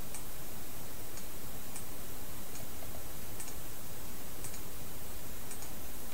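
Computer mouse button clicking about eight times, once every second or so, over a steady hiss of background noise.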